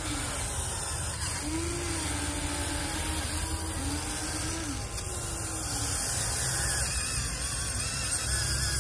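Huina 1593 RC excavator's small electric motors whining as the boom and bucket move, the whine starting and stopping and stepping up and down in pitch several times, over a steady rushing background.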